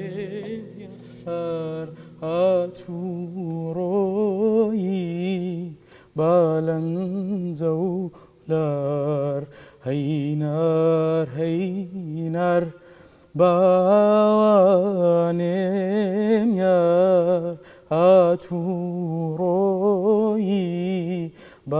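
A man singing without accompaniment in long, free-rhythm phrases with heavy vibrato and ornament, about six phrases broken by short breaths. The last notes of an oud ring out and fade at the very start.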